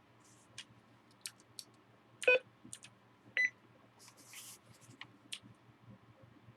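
Cherry MX Blue key switches on a WASD keyboard clicking as single keys are pressed one at a time, a dozen or so sparse clicks, with two short beep-like tones about two and three and a half seconds in.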